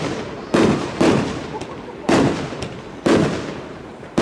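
Aerial fireworks bursting overhead: four loud bangs, roughly a second apart, each trailing off in an echo.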